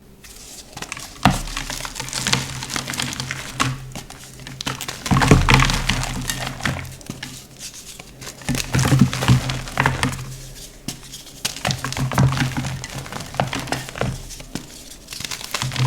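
Blue gym chalk slabs being crushed and crumbled by hand: dense, irregular crunching and crackling with sharper cracks, heaviest in a few clusters.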